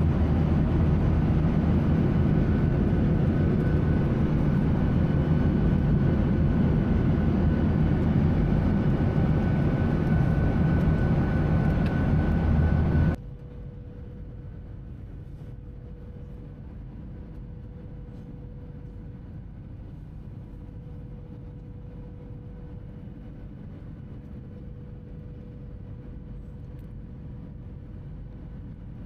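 Airliner cabin noise: a loud, steady drone of the jet in flight. About 13 seconds in it cuts off abruptly to a much quieter steady hum with a thin, faint whine.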